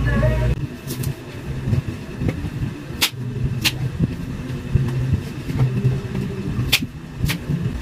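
Kitchen work sped up in fast-forward: a low, uneven rumble with about four sharp clicks and clinks of a knife and dishes.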